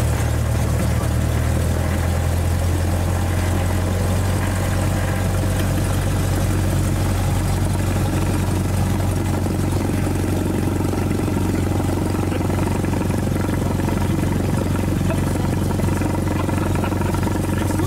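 Single-engine Cessna's piston engine and propeller running steadily at low power while taxiing, heard from inside the cabin as a steady low drone.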